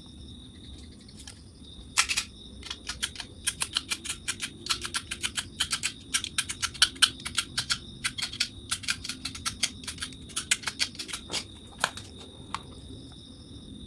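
Rapid scratchy clicks of a cutter blade scraping the motorcycle stator's copper winding joint clean for soldering, several strokes a second, starting about two seconds in and stopping near the end. Crickets chirp steadily behind.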